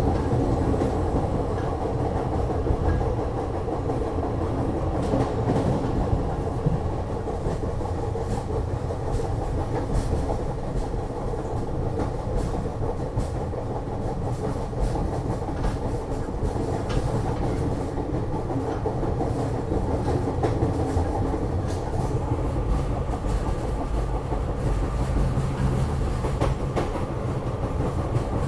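SEPTA Wilmington/Newark Line electric regional rail train running at speed, heard from inside the passenger car as a steady rumble with scattered light clicks.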